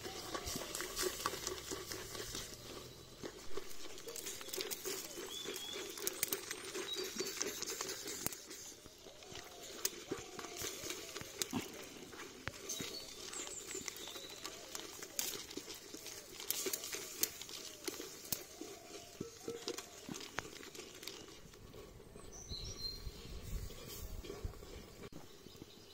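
Wooden stick stirring a boiling chicken curry in a clay pot. Many short clicks and knocks of the stick against the pot ride over the steady bubbling of the liquid.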